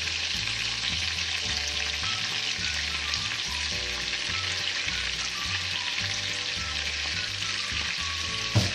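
Chicken drumsticks sizzling steadily in hot oil in a frying pan as sliced garlic and parsley are added to the fat. There is a brief knock near the end.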